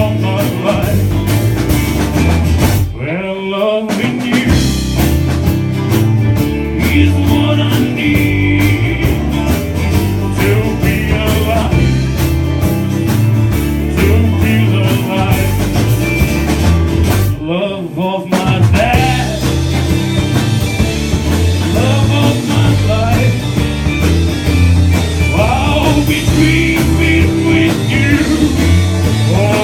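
Live country band of guitar, banjo, pedal steel, harmonica, bass guitar and drums playing a rockabilly-style song with a steady beat. The band stops briefly twice, about three seconds in and again a little past halfway.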